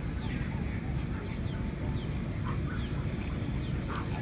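Outdoor ambience: a steady low rumble of wind on the microphone, with scattered short, faint high chirps.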